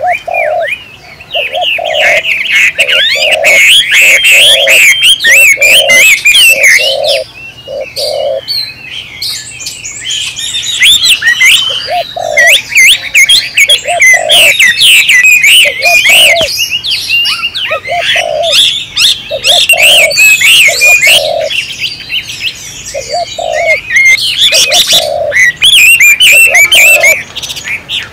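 Birdsong: many small birds chirping and trilling in a dense, continuous chorus, over a dove's low coo that repeats about once a second and breaks off twice.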